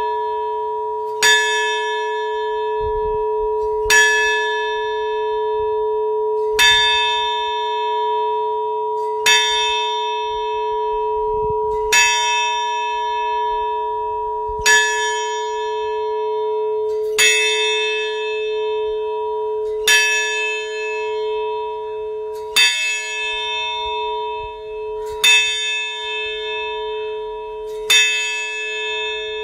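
A large bell struck slowly and evenly, about once every two and a half to three seconds, eleven strikes in all. Each stroke rings on into the next, so the bell hums continuously between strikes.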